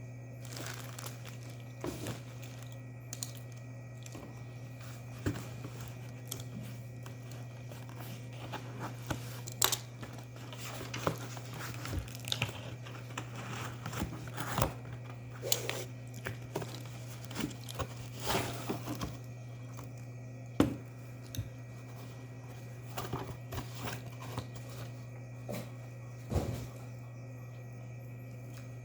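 Packaging being unwrapped and handled, crinkling and rustling with scattered irregular clicks and taps, over a steady low hum.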